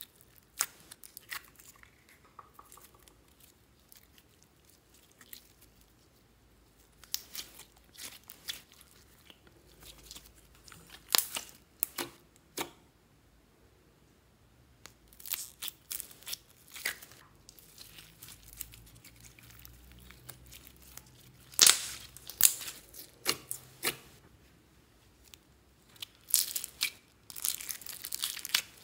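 Slime being squeezed and tipped out of thin plastic cups and tubs into a glass dish: sticky crackling, popping and plastic crinkling in several short clusters of sharp clicks, with quiet gaps between.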